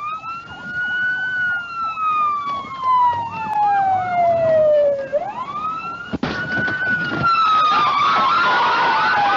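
Police car siren wailing: each cycle rises quickly and then falls slowly over about four seconds, heard about twice. A sharp knock comes about six seconds in, and a rushing noise builds under the siren near the end.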